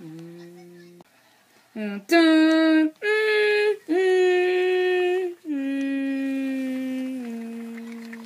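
A child's voice singing or humming a slow tune of long held notes, about six in a row with short breaks, the last one stepping down in pitch and fading away.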